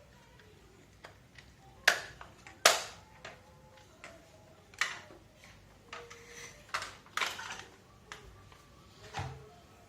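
Parts of an electric fan being handled during a repair: a series of sharp clacks and knocks, about six in all, the loudest two around two seconds in.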